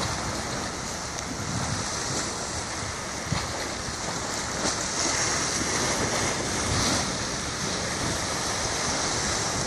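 Sea waves washing with a steady hiss, with wind gusting on the microphone. One short knock about a third of the way in.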